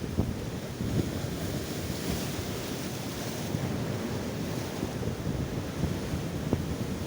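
Ocean surf breaking and washing up a beach, with a hissing surge about two to three seconds in. Wind buffets the microphone throughout, adding low rumble and a few sharp thumps.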